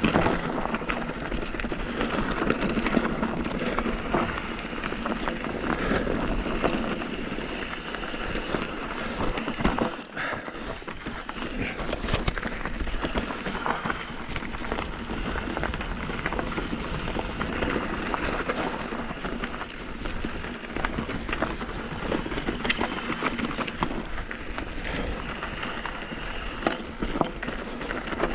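Mountain bike riding down a rocky dirt trail: tyres rolling over stones and gravel, with frequent clicks and rattles from the bike over the bumps.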